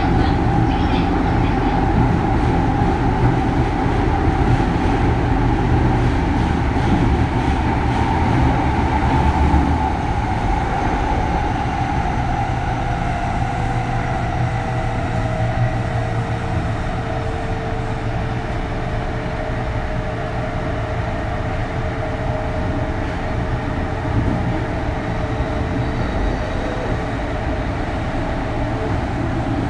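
Kintetsu 3200 series train running, recorded aboard motor car Mo 3205: the early Mitsubishi GTO-thyristor VVVF inverter whine over the rumble of wheels on rail. The inverter tones glide slowly lower through the second half, with a second lower tone joining about twelve seconds in.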